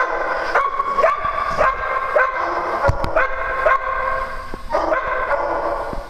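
Several small dogs barking and yapping over one another, a fresh bark about every half second.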